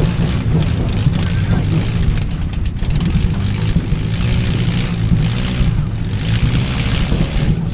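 Demolition derby cars' engines running loud and revving, with a quick run of sharp knocks about two and a half seconds in.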